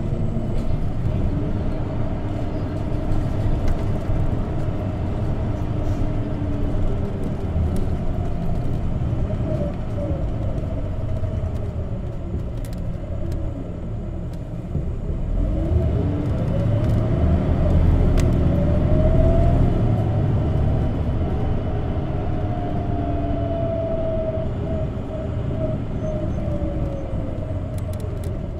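Cabin running sound of an Isuzu Erga CNG (compressed natural gas) city bus. The engine and drivetrain whine falls as the bus slows around the middle, then climbs as it pulls away and accelerates, and eases off near the end.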